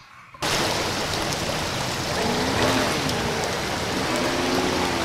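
Fast floodwater rushing down a swollen creek, a steady loud rush that starts abruptly about half a second in.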